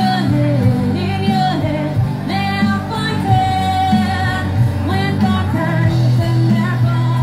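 Live rock band: a woman singing lead over drums and electric guitar.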